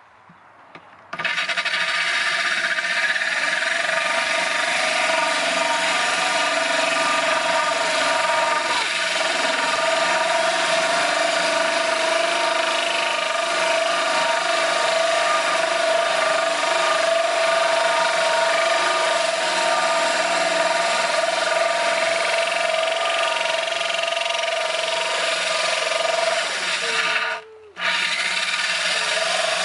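Corded power drill running steadily as its bit grinds through the aquarium's glass panel under a stream of cooling water, a gritty grinding over the motor's steady tone. It starts about a second in, stops for a moment near the end and starts again.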